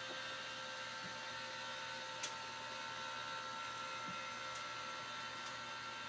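Electric motor of a toy hauler's powered bed lift running steadily with a whine of several steady tones, raising the stacked beds toward the ceiling. A faint click about two seconds in.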